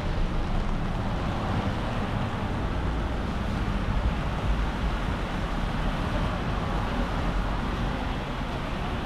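Steady city street noise: traffic running on a wet road, a low rumble under a hiss that holds evenly throughout.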